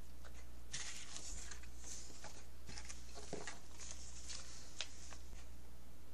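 Paper and fabric pieces being handled and shuffled on a work surface: intermittent soft rustles with a few light taps, over a steady low hum.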